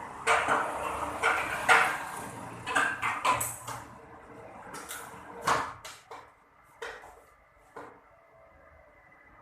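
Irregular clattering knocks and clacks of hard objects being handled, several in quick succession over the first few seconds, then a few isolated ones farther apart.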